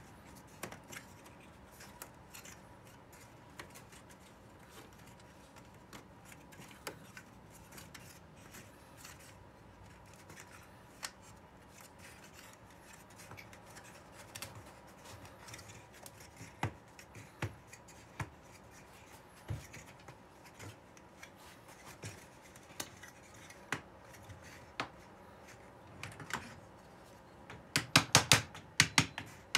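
Thin walnut kumiko strips clicking and scraping as they are pressed by hand into the notched lattice: scattered small clicks. Near the end comes a quick run of sharp taps from a small mallet knocking the pieces home.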